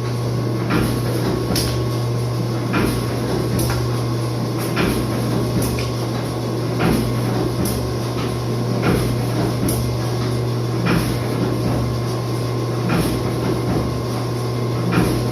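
Commercial dough divider and rounder line running: a steady motor hum with a sharp knock repeating roughly once a second as the machine cycles.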